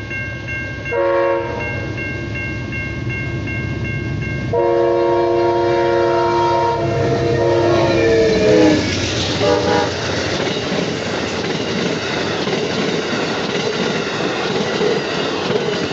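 Amtrak GE Genesis P42DC locomotive sounding its horn at a grade crossing, over a steadily ringing crossing bell. There is a blast about a second in, a long blast from about four and a half seconds that drops in pitch as the locomotive passes, and a short blast near ten seconds. After that the passenger cars roll by with a steady rumble and clatter of wheels on rail.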